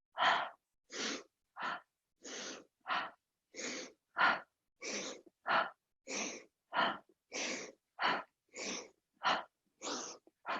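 A woman's rapid, rhythmic breathing: sharp inhales through the nose alternating with exhales out of the mouth, about one breath every 0.6 s. This is a Kundalini breath technique for opening the heart chakra.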